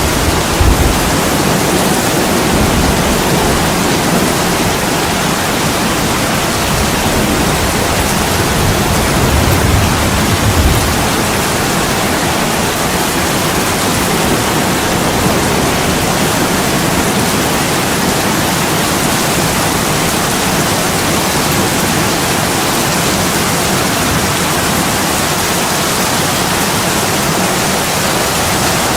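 Steady heavy rain, an even hiss, with a low rumble of distant thunder at the start that swells again about ten seconds in and then dies away.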